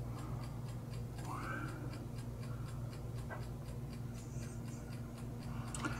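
Quiet room tone: a steady low hum with faint, evenly spaced ticking like a clock, and a brief faint squeak about a second and a half in.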